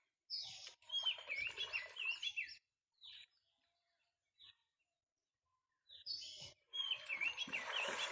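A songbird sings a short warbling phrase twice, about five seconds apart, each time over a rough rustling noise.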